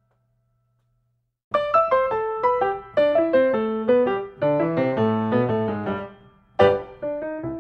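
Near silence, then background piano music starts about a second and a half in: a melody of separate struck notes over lower notes, briefly fading before a strong new phrase near the end.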